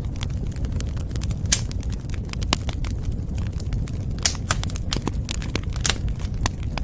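Wood fire crackling in a fireplace: a steady low rumble of burning with many sharp crackles and a handful of louder pops scattered through.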